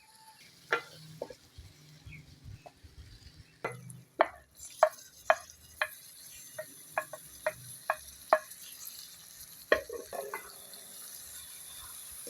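Keema frying in a pan: a spoon stirring and scraping it, with a run of sharp clinks about two a second through the middle, over a sizzle that becomes steadier after a few seconds.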